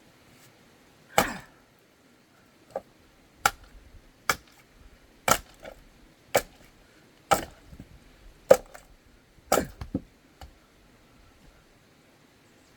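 Axe splitting firewood: about ten sharp chopping strikes into logs, roughly one a second, with two in quick succession near the end.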